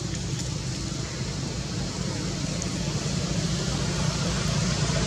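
Steady low outdoor rumble with a faint hiss above it, with no distinct calls or knocks standing out.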